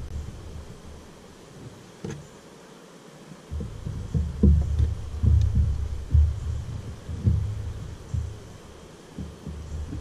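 Irregular low thumps and rumbling on the microphone, quieter for a moment about two seconds in and heaviest from about four to eight seconds in.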